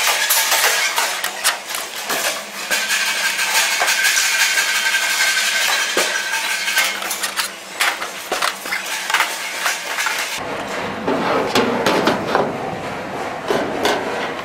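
Clinks and knocks of a screwdriver and sheet-metal bracket parts against a printer's steel cabinet, over steady workshop background noise. About ten seconds in the background changes suddenly to a lower, duller noise.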